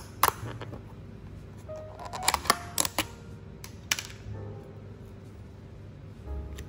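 Thin plastic takeaway container lid being pried off its tub: a run of sharp plastic clicks and snaps, most of them bunched together about two to four seconds in.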